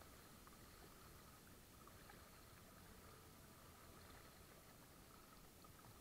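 Faint water lapping against a kayak's hull as it moves across choppy water, with no clear paddle strokes.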